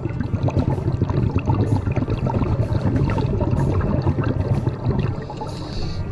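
Underwater noise picked up through a GoPro Hero9's waterproof housing during a scuba dive: a steady muffled low rumble with many small crackling clicks, like bubbles in the water.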